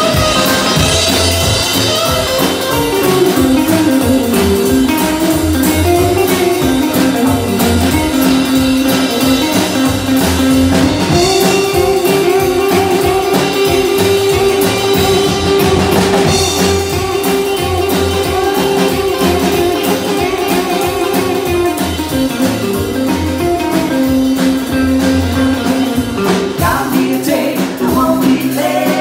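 Live rock and roll band playing: an electric guitar solo on a red hollow-body electric guitar over drums and rhythm guitar, with one long held note in the middle. Singing comes back in near the end.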